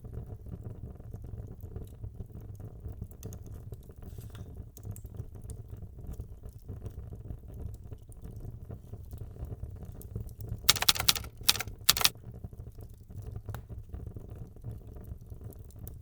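Junk-journaling craft work: light tapping and handling of paper and materials on a desk over a low steady hum. About two-thirds of the way through come three short, loud rasps.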